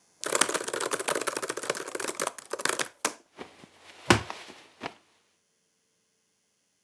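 Dense crackling, rustling noise for about three seconds, then three sharp knocks, the loudest about four seconds in.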